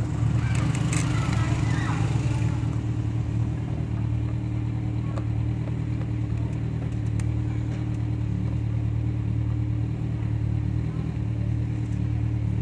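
A steady low machine hum, with a few light clicks.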